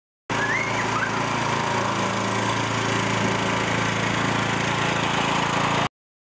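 Toro riding lawn mower engine running steadily with an even low hum, starting and cutting off abruptly. A brief high chirp is heard about half a second in.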